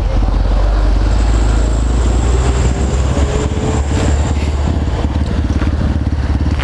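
Honda CRF150L's single-cylinder four-stroke engine running steadily while the motorcycle is ridden, a dense, rapid low thumping of firing pulses.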